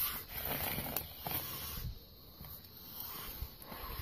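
Cornered mountain lion hissing defensively, in two long breathy hisses with a short pause between.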